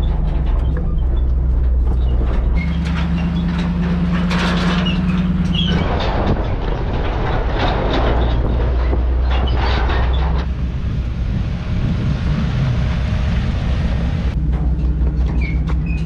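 Off-road recovery truck's engine running steadily as it drives slowly over a rocky trail, with knocks and rattles from the body and trailer. The sound changes abruptly a few times.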